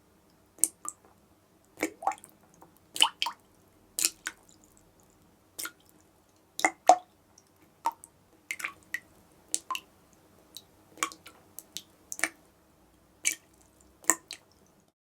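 A dripping tap: water drops falling one at a time, about one to two a second at uneven spacing and often two in quick succession, each a short sharp drip.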